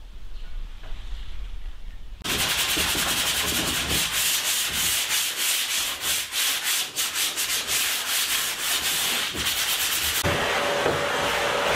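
Hand sanding of a plywood kayak deck: rapid scratchy rubbing strokes of sandpaper on the wood and filler. About ten seconds in a shop vacuum starts and runs with a steady whine.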